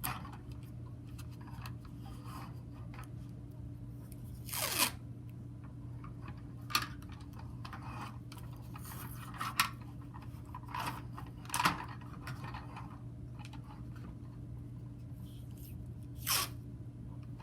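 Adhesive tape being pulled off the roll and torn in a handful of short rips, the loudest about five seconds in, with light handling and rustling between, over a steady low hum.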